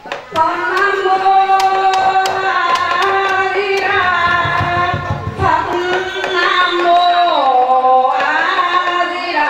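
Traditional Vietnamese ritual music: a woman's voice sings long held notes that slide up and down between pitches, with a few sharp percussion clicks.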